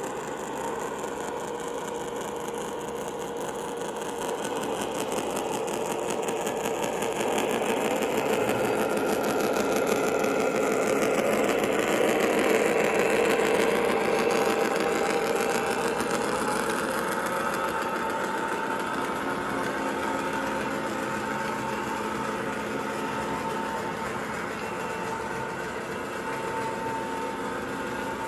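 New York City subway train running: a steady rumble and rush that swells to a peak about halfway through and eases off again, with a few faint steady whining tones over it.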